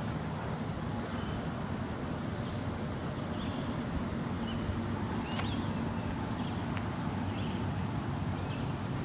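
A steady low droning hum in the open air, made of several deep tones held at an even level, the unexplained 'strange sound in the sky'. Short bird chirps come and go over it.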